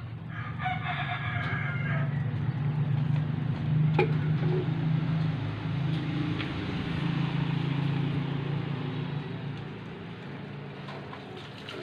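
A rooster crows about half a second in. Under it a low motor hum, loudest in the middle, fades away near the end, with one sharp click about four seconds in.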